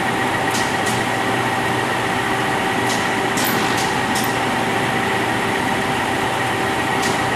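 Nardini 20 by 120 engine lathe running steadily, its gears giving a constant whine over a hum, with a few light clicks in the first half.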